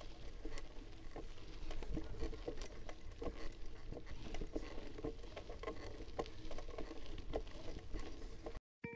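Mountain bike rolling over a rough dirt and gravel road, heard up close: irregular crunching and rattling clicks from the tyres and bike, with a low wind rumble on the microphone. The sound cuts off abruptly near the end, and music begins just after.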